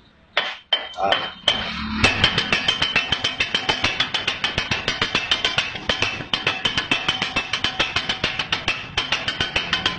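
Two flat metal spatulas chopping kothu parotta on a griddle: a few separate clangs, then from about two seconds in a fast, steady rhythmic clatter of metal on metal, about five strikes a second.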